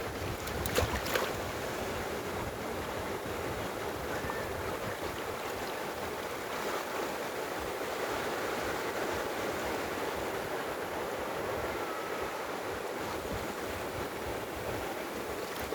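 Sea waves washing on the shore in a steady, unbroken rush of surf. A couple of sharp knocks about a second in are the loudest moments.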